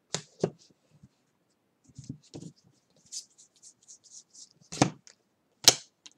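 Baseball trading cards being flipped through by hand: a run of short papery swishes and light card clicks, with two sharper clicks near the end.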